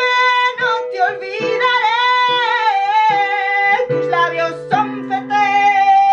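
A woman singing a slow, drawn-out melody in a ballad style, holding long notes, over an instrument's sustained chords that change every second or so.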